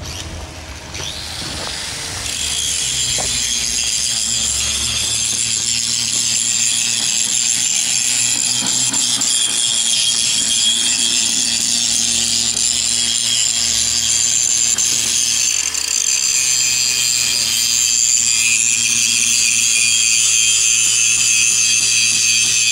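Electric angle grinder cutting steel rebar: a loud, steady, high-pitched grinding that starts about two seconds in.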